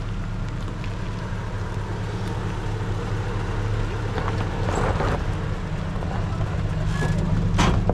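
An engine running steadily with a low hum that slowly grows louder, with a few light knocks over it.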